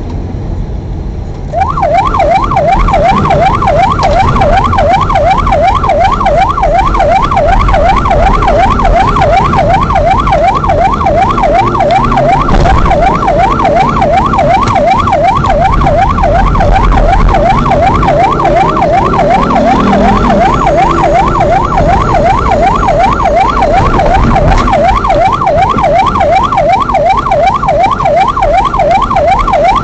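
Electronic vehicle siren switched on about a second and a half in, sounding a rapid up-and-down yelp, a couple of sweeps a second, over the car's engine and road noise. It is the warning siren of the rally course-check safety car driving the stage before it goes live.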